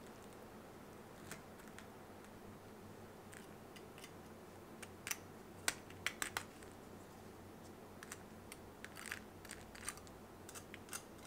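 Scattered crisp crackles and clicks from the fried breadcrumb crust of a pumpkin, bacon and cheese croquette being pulled apart by hand, over a faint steady room hum. The crackles come thickest around the middle.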